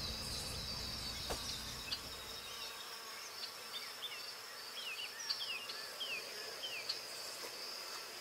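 Night insects keep up a steady high trill. A few short falling chirps sound over it in the middle.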